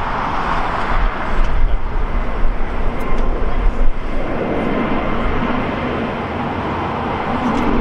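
Jet engines of an Airbus A320-family airliner climbing after takeoff: a loud, steady rushing noise that turns deeper about halfway through.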